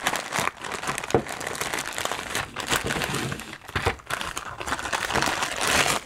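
Clear plastic zip-top bag crinkling and rustling unevenly as hands open it and pull it off a cardboard box, with a few sharp clicks.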